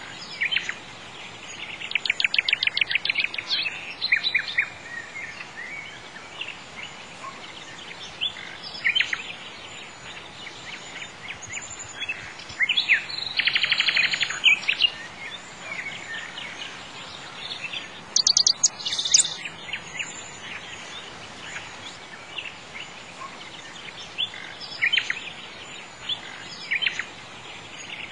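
Songbirds chirping, with fast trills coming every few seconds over a faint steady hiss.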